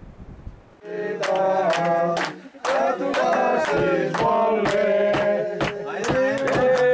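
A small group singing a birthday song together, with hand-clapping in time, starting about a second in.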